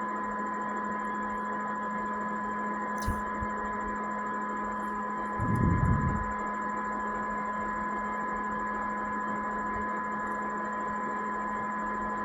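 Steady electrical hum and whine made of several constant tones over a faint hiss. A small click comes about three seconds in, and a brief low bump, the loudest thing here, comes about halfway through.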